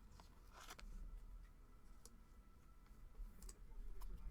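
Faint clicks and light rustling of trading cards being handled and slid through a pack, over a low room hum.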